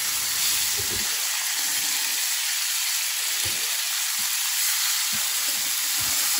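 Salmon fillets sizzling steadily in hot butter in a frying pan while they are turned with a spatula, with a few short, soft knocks of the spatula against the pan.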